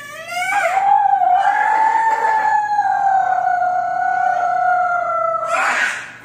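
A small girl crying out in fright: one long, loud wail held about five seconds, rising slightly then slowly sinking in pitch, ending in a sharp breath.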